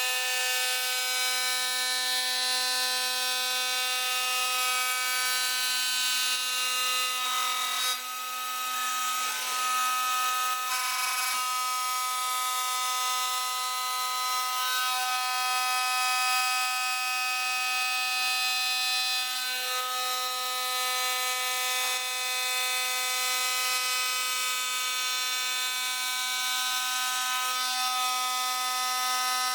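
A CNC stone-processing machine running: a steady, high multi-tone machine whine over a constant hiss, with brief small changes in pitch about 8, 11 and 20 seconds in.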